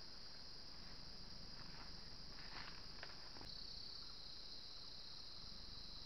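Steady, high-pitched drone of forest insects, with a few faint soft rustles about halfway through.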